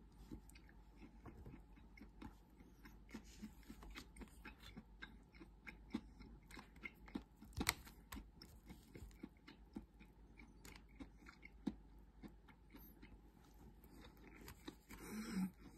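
Faint close-up chewing of clam rice, with small irregular clicks of chopsticks against the bento box and one sharper click about eight seconds in.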